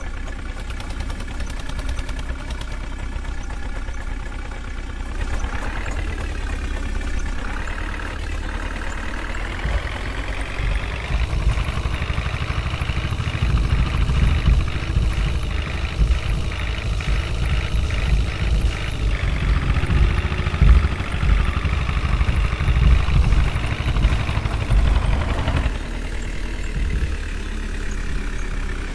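Heavy diesel engine running, then revving up with its pitch climbing about six seconds in, and labouring hard under load with a loud low rumble before easing back near the end.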